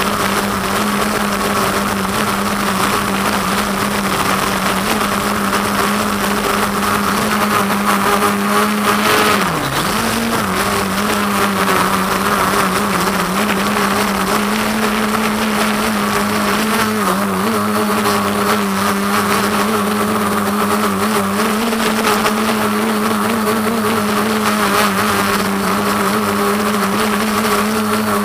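Quadcopter's electric motors and propellers buzzing steadily, heard up close from the camera on the quad, the pitch wavering with throttle. About nine to ten seconds in the pitch drops sharply and climbs back.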